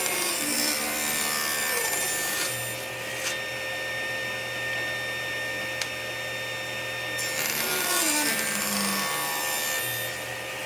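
Table saw running steadily while it cuts stop-cut slots into narrow wooden drawer-slide strips. There are two cuts, one at the start lasting about two and a half seconds and another about seven seconds in, with the saw just spinning between them.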